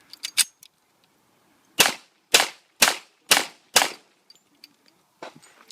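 Citadel 1911 .45 ACP pistol firing five shots in quick succession, about two a second. A few light clicks come shortly before the first shot.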